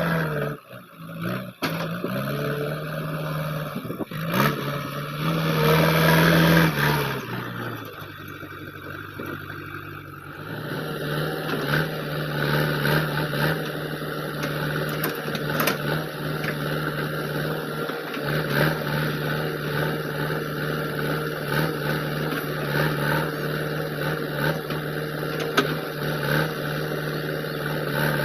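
JCB 3DX backhoe loader's diesel engine working under load, revving up a few seconds in, easing off around seven seconds, then running steadily at higher revs for the rest, with a few faint knocks from the work.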